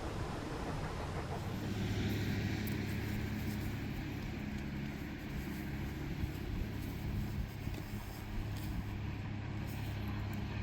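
Steady low rumble and hum of a railroad passenger coach, heard from inside, with faint scattered clicks. The hum firms up about a second and a half in and then holds.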